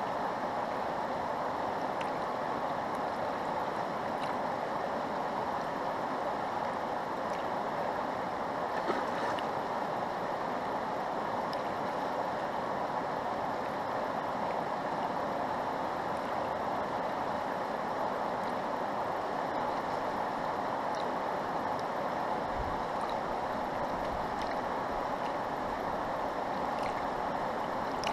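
Fast-flowing river water rushing steadily, an even wash of noise with no change, and a few brief low bumps near the end.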